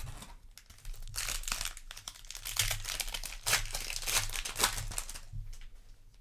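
Foil booster pack wrapper crinkling as it is handled, in a run of crackly rustles.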